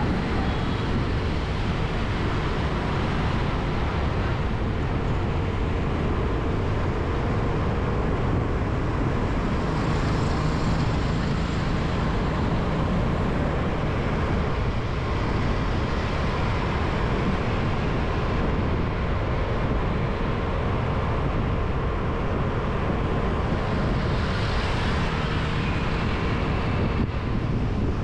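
Steady road traffic noise, even in level throughout, heaviest in the low rumble, with a faint steady hum under it.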